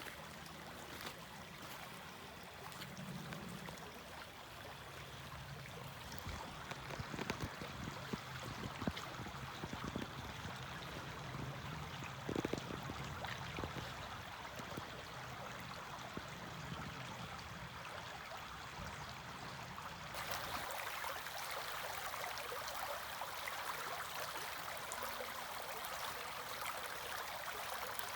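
Running water, like a small stream trickling, as a steady quiet noise with a few faint knocks. It grows brighter and a little louder about twenty seconds in.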